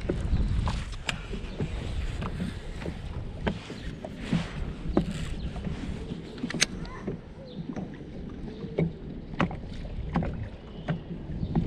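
Water lapping against the hull of a small fishing boat, with wind rumbling on the microphone, strongest in the first second or so. Scattered sharp clicks and knocks at uneven intervals come from handling the baitcasting rod and reel.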